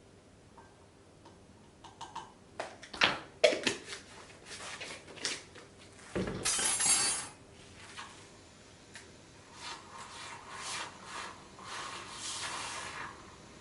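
Hard objects clinking and knocking as they are handled, like dishes and utensils, with a short rush of noise about six seconds in and softer scraping and rustling after it.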